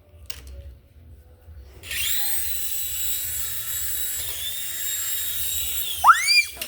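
A small toy helicopter's electric motor and rotor whirring with a steady high whine, starting about two seconds in and cutting out near the end. A short, loud, high squeal rises and falls in pitch just after it stops.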